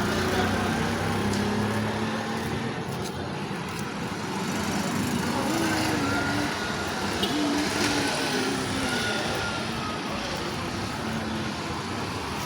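Road traffic noise: a steady din of motor vehicle engines.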